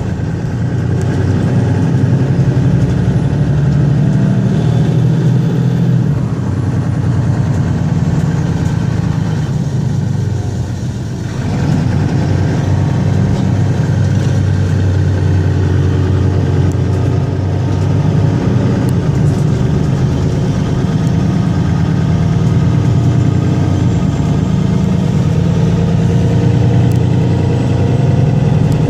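Mercedes-Benz Citaro Facelift city bus engine running steadily as the bus drives, heard from inside the passenger cabin. It eases off briefly about ten seconds in, then picks up again.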